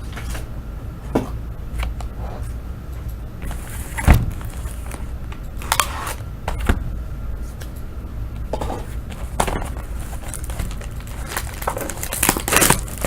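Plastic shrink-wrap on a sealed box of trading cards crinkling and tearing as it is opened, with scattered clicks and one sharp knock about four seconds in. The crinkling gets louder near the end.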